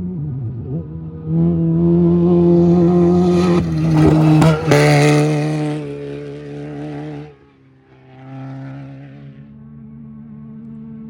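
An off-road race vehicle's engine passes at speed. It swells in about a second in and is loudest through the middle, with a few sharp cracks. Its pitch drops a little as it goes by, and it fades out after about seven seconds. A fainter steady engine carries on near the end.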